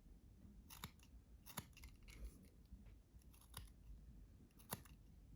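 Small multitool scissors snipping: four or five short, crisp snips spread about a second apart, quiet overall.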